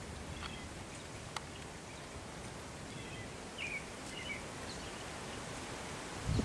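Open-air rural ambience: a steady wash of wind and rustling leaves, with a few short bird chirps scattered through it. A brief low rumble of wind on the microphone comes at the very end.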